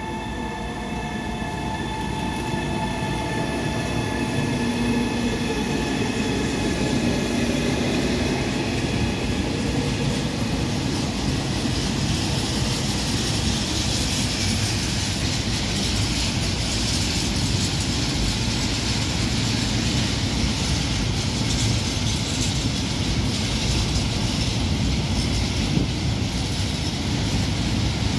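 Long loaded freight train passing, double-headed by a Siemens Smartron and an EA 060 electric locomotive: a whining hum from the locomotives in the first several seconds gives way to the steady rumble and clatter of the open freight wagons rolling by.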